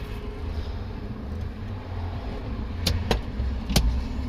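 Power Stow 'n Go rear seat of a 2008 Chrysler Town and Country unfolding under its electric motors: a steady low motor hum, with three sharp clicks about three seconds in.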